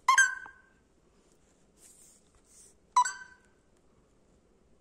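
Indian ringneck parrot giving two short, loud calls, one at the start and one about three seconds later.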